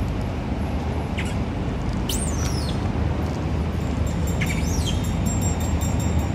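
Three high-pitched squeals from juvenile long-tailed macaques: a short one about a second in, a longer rising-and-falling one about two seconds in, and a falling one about four and a half seconds in. They sound over a steady low rumble.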